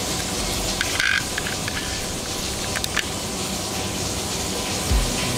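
Steady rushing hiss, with a few light clicks about one second and three seconds in from handling a small die-cast toy SUV and opening its door.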